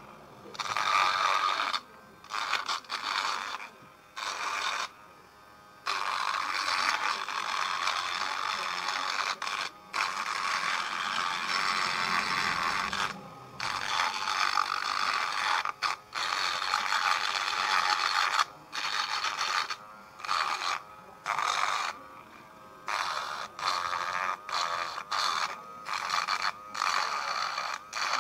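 Small handheld electric rotary tool with a grinding bit whining as it grinds and cuts into a PVC pipe. The sound comes in stretches with short breaks as the bit is pressed on and lifted off, and the breaks come more often in the second half.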